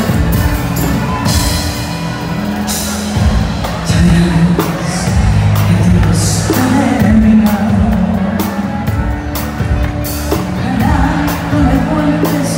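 Live pop band playing with a woman singing, drum hits and several cymbal crashes over a heavy, sustained bass line.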